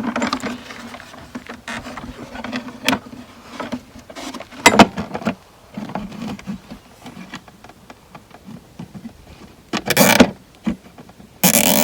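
Zip ties being handled and threaded through a cracked plastic storage box: scattered clicks and rustling, then a zip tie ratcheting as it is pulled tight, briefly about ten seconds in and again just before the end.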